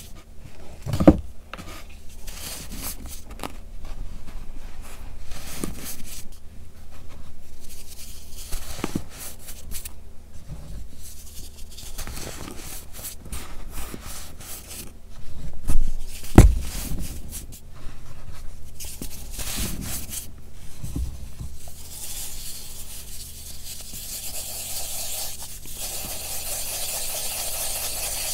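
Hands crumbling and squeezing gritty pressed baking soda blocks and digging into loose baking soda powder, with irregular soft crunching and rubbing. There are two heavier thumps, about a second in and around the middle. Near the end, two blocks are rubbed against each other, giving a steadier hissing scrape as powder sifts down.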